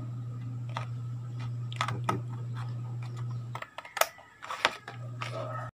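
Scissors cutting paper: a run of irregular, sharp snips and blade clicks as they cut along a drawn outline. A low steady hum runs underneath.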